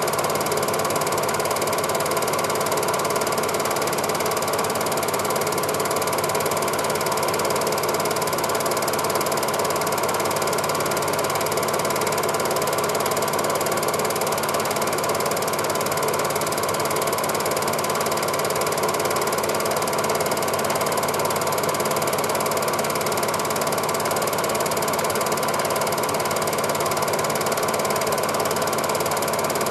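Cine film projector running: a steady, even mechanical clatter from its film-advance mechanism, unchanging throughout.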